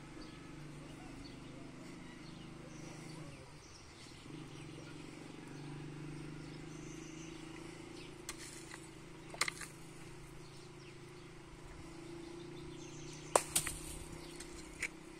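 A small hand hoe knocking and scraping into stony garden soil: a few sharp, short strikes, the loudest pair near the end, over a faint steady low hum.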